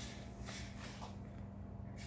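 Quiet room tone with a steady low hum and a few faint soft ticks and rustles.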